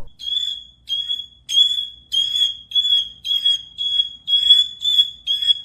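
A bird repeating a high-pitched, beep-like call over and over, a little under twice a second, sounding much like a smoke alarm.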